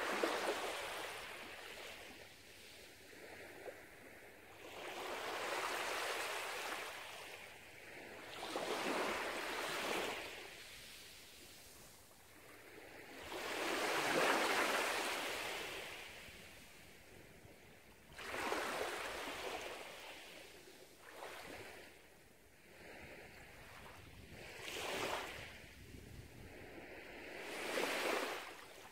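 Small, gentle waves washing up onto a sandy beach, each one swelling and fading away, about eight in half a minute.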